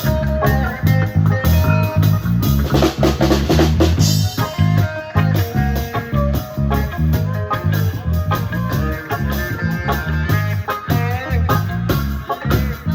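Live band playing a song: drum kit keeping a steady beat over a bass line, with guitar.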